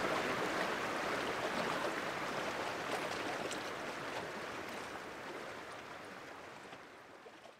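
Creek water flowing and rippling in a steady rush that slowly fades out toward the end.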